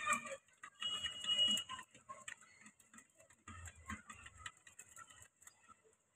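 Rock pigeons pecking seed from a shallow dish: a rapid, irregular run of small beak clicks and taps.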